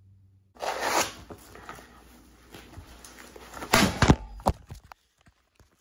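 Rustling, scraping noise that starts suddenly, swells into a louder clatter about four seconds in, then ends in a few sharp clicks.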